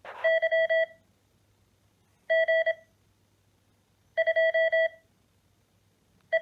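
Morse code practice oscillator's built-in tutor sending random call signs at speed: a steady beep keyed in quick dots and dashes through its small speaker. It comes in short groups about a second and a half apart, three full groups and the start of a fourth near the end.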